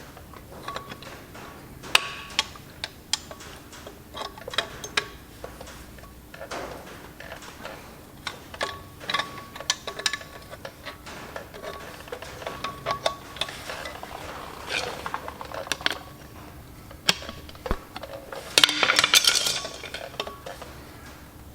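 Steel hand tools clinking against metal and a ratchet wrench clicking in short runs as the flywheel bolts are done up, with a denser, louder rattle of clicks near the end.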